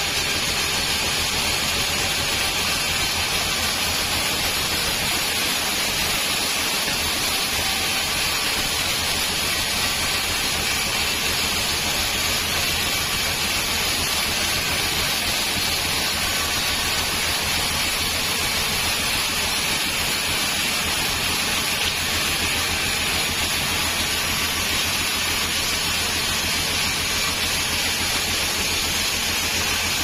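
Band sawmill blade cutting lengthwise through a teak log, a steady hiss of the blade in the wood with the machine's low hum underneath.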